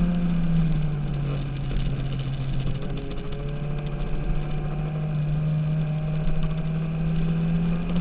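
Sport motorcycle engine heard from a camera mounted on the bike, with wind rush over the microphone. The engine note drops about half a second in, holds lower, then climbs again from around three seconds in as the revs rise.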